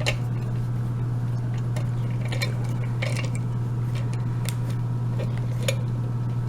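Scattered light metallic clicks and clinks from a brass padlock being clamped in a vise and handled, over a steady low hum.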